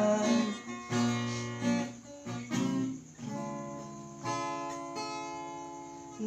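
Acoustic guitar strumming chords in an instrumental break of a song, each chord struck about once a second at first and left to ring and fade, the last one held longer.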